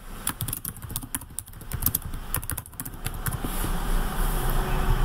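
Computer keyboard typing, a quick run of key clicks. About three seconds in it gives way to a steady rushing noise that grows louder.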